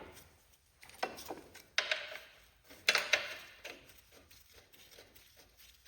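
Three sharp metal clanks about a second apart, the later two ringing briefly: tools or metal parts knocking together during a garden tractor repair.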